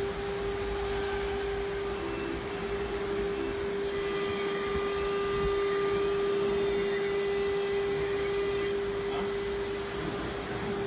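Mini 6090 CNC router's electric spindle motor running at high speed with no cut, a steady high-pitched whine at one pitch.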